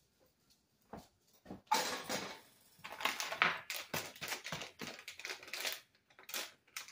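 Kitchen handling noise at a counter: a couple of light clicks, then from about two seconds in an irregular run of quick scrapes, clatters and rustles that fades near the end.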